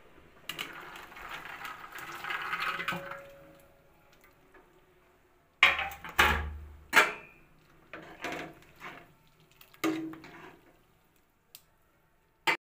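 Cooking at a steel pot of boiling water: a splashing rush of liquid in the first few seconds, then a string of sharp clinks and clanks of steel utensils against the pot and plate.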